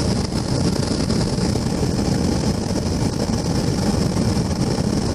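Steady rumble and hiss of travel at speed, from a road vehicle running alongside an electric commuter train.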